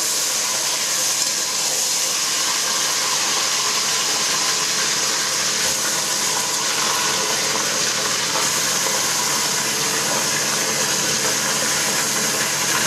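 Chunks of raw beef sizzling steadily in hot oil in a kazan as they are added a few at a time, searing for plov.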